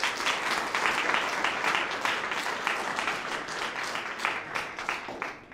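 Audience applauding: many hands clapping, starting abruptly and fading away near the end.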